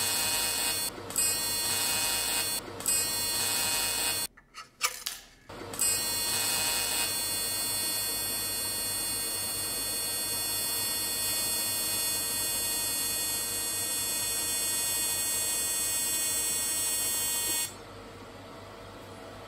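Low-amperage AC TIG welding arc from a .040 tungsten on a thin aluminium can, buzzing. It starts rough, catching and breaking off several times in the first few seconds, then burns steadily until it cuts off shortly before the end.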